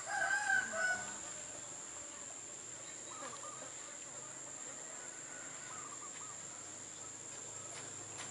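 Rooster crowing once, a loud call about a second long at the start, followed by fainter calls a few seconds later.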